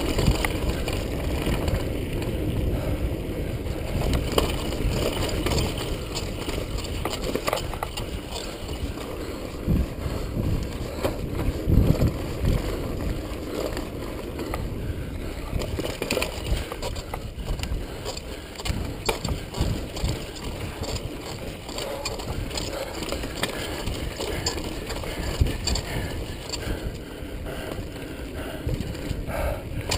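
Kona Stinky Dee-lux mountain bike rattling and clattering down a rough dirt singletrack, with tyres rumbling over the trail and wind buffeting the helmet camera's microphone at speed. Sharp knocks come throughout, the loudest about twelve seconds in.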